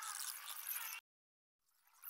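A dense chorus of frogs calling outdoors. It cuts off abruptly about a second in, leaving dead silence, then fades back in near the end.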